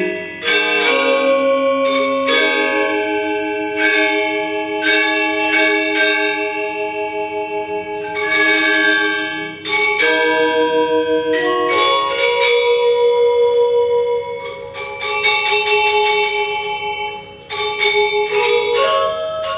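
Balinese gender wayang: bronze metallophones struck with mallets, playing a fast interlocking melody. The notes ring on with a pulsing shimmer.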